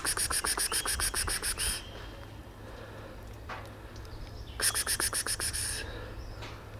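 A person calling a cat with rapid hissing 'pspsps' sounds, in two quick runs, the second starting about four and a half seconds in.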